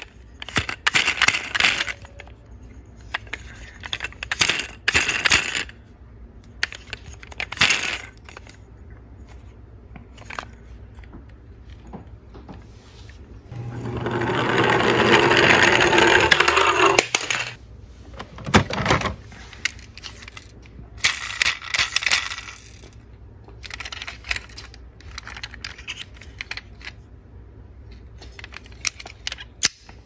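Toy vehicles clicking and clinking against each other as they are handled in a cardboard box. About 14 seconds in, a plastic toy ambulance rolls down a slope on its plastic wheels, a rolling rumble that builds for about four seconds and then stops, followed by more clinking from the box.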